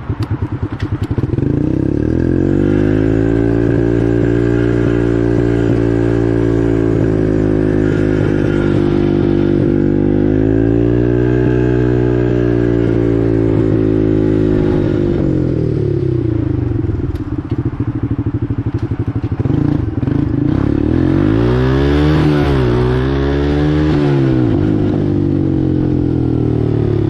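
Four-wheeler (ATV) engine under way, its pitch climbing about two seconds in and holding steady, swelling again around the middle, easing off, then revving up and down quickly a few times near the end.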